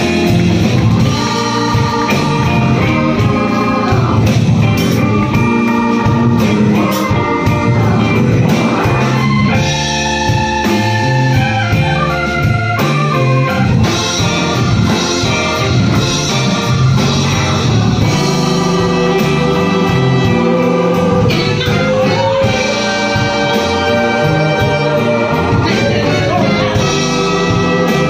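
Live band playing, with Nord Stage 3 keyboards and electric bass, and voices singing in the second half.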